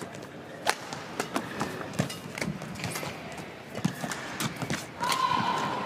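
Badminton rally: rackets strike the shuttlecock with sharp cracks every second or so, and court shoes squeak as the players lunge and push off. About five seconds in there is a longer squeal and the arena noise swells as the final shot goes long.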